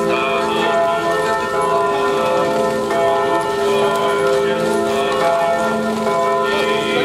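Bells ringing continuously, many tones overlapping in a steady peal.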